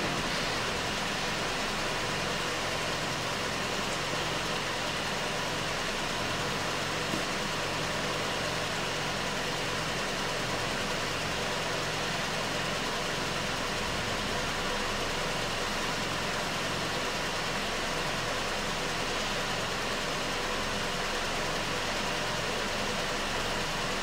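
Toyota RAV4 engine idling steadily under a constant even hiss.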